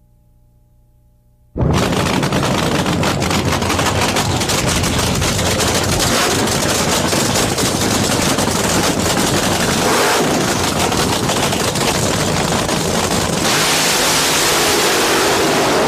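Supercharged nitromethane-burning V8 of an NHRA funny car, starting abruptly about a second and a half in and running very loud with a rapid, harsh crackle.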